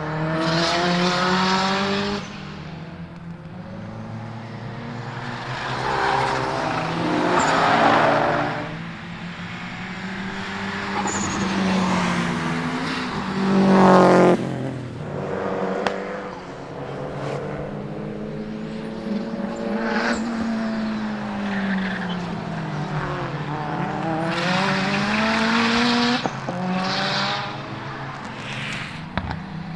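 Rally-style race cars lapping a circuit: engines rev up and drop back through gear changes as they pass, one after another. The loudest pass comes about fourteen seconds in.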